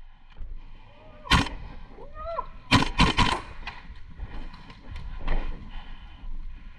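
Airsoft gunfire: a sharp single shot about a second and a half in, then a quick group of three shots about a second later.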